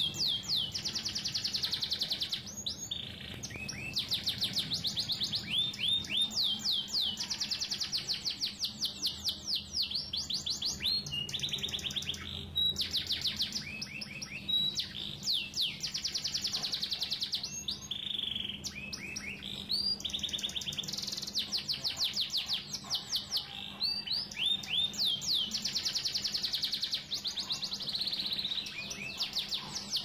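Songbird song recording used as contest-bird training material (masteran). The bird sings phrases of fast, repeated rising whistled notes, each phrase about two seconds long with short breaks between them.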